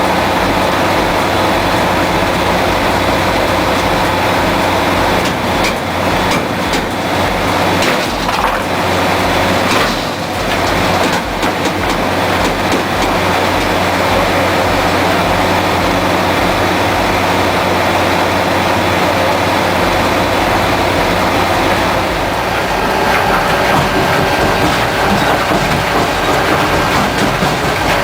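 Heavy crushing machinery running under load: a steady engine hum with continuous rattling and clatter, and a run of knocks in the first half. A new steady whine joins near the end.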